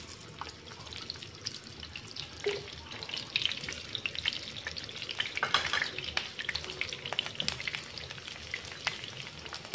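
Whole shallots, garlic cloves and star anise starting to fry in fresh oil in a nonstick frying pan: a steady sizzle with scattered small pops and crackles, busiest a few seconds in.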